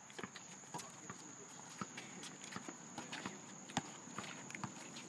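Footsteps of several basketball players in sneakers on an asphalt court, with irregular sharp knocks, such as the ball bouncing, several a second. The loudest knock comes a little before four seconds in.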